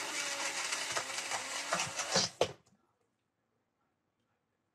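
Personal single-serve blender motor running, a steady whirring hiss, which stops after a few sharp clicks about two and a half seconds in.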